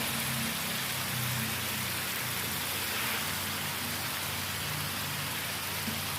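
Balado chili paste frying in a wok with fried eggplant stirred in, giving a steady sizzle, with a low steady hum underneath.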